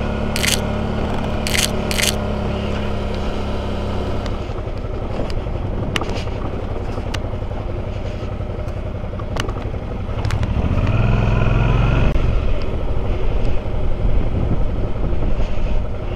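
Motorcycle engine running under way, with wind and road noise. A few sharp clicks come in the first two seconds, and the engine note rises and gets louder about ten seconds in.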